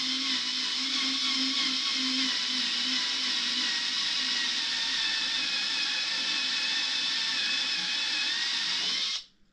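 Cordless drill running steadily at high speed with a high, even whine as its bit grinds out an air pocket in cured epoxy resin; it stops abruptly near the end.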